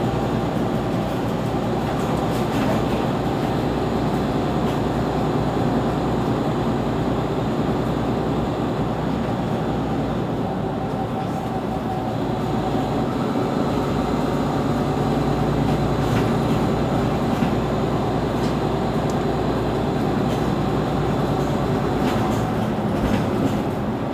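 Mercedes-Benz Citaro C2 city bus's rear-mounted engine idling while the bus stands still: a steady low rumble that holds at one level throughout.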